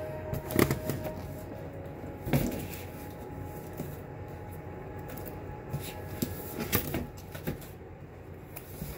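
A statue's packaging being opened by hand: rustling and scraping with a few sharp knocks and clicks, the loudest about half a second in, around two and a half seconds in, and near seven seconds.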